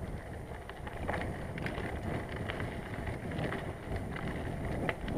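Bicycle being ridden over a rough path: a steady rumble from the tyres and frame with scattered small rattles and clicks, and wind buffeting the microphone.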